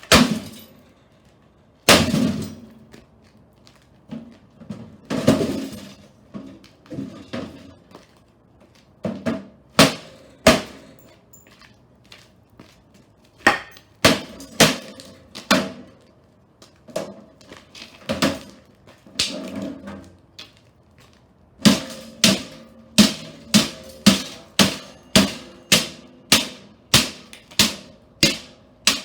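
Toaster oven being beaten: hard blows ringing on its sheet-metal body, spaced irregularly at first, then a steady run of about two a second in the last seven seconds.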